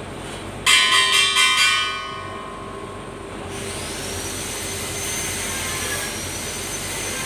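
A loud horn blares in four or five quick pulses about a second in. From about three and a half seconds, a steady rushing noise with a high, slightly wavering whine builds.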